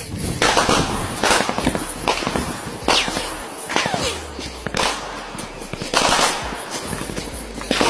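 Gunfire: about seven sharp single shots at irregular intervals, each with a short echoing tail.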